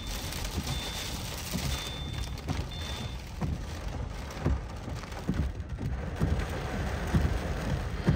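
Heavy rain from a severe thunderstorm pelting a vehicle, heard from inside the cab, with irregular low thumps of wind and rain gusts against the body. A faint high beep repeats about once a second during the first three seconds.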